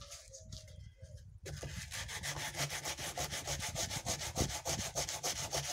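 Sandpaper rubbed back and forth over dried, rough cement studded with beads, sanding the surface down to bring out the beads. The strokes are quieter and broken at first, then pick up about a second and a half in as a quick, even train of rasping strokes.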